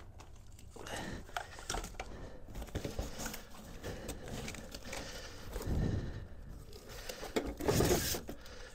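Cardboard packaging being handled: the cardboard insert rustles and scrapes against the foam frame as it is lifted out of the shipping box, with two louder scrapes about six and eight seconds in.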